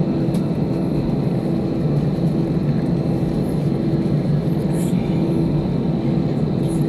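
Cabin noise inside an Airbus A319 taxiing at low engine power: a steady low rumble, with a hum that swells and fades about once a second.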